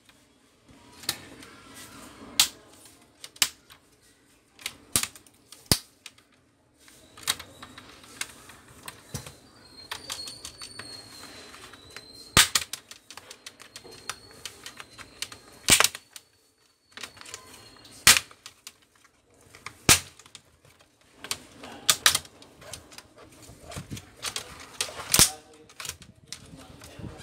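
Plastic snap clips of a Toshiba Satellite C660 laptop's screen bezel popping loose as the bezel is pried off by hand. The sharp, irregular clicks and snaps come every second or two.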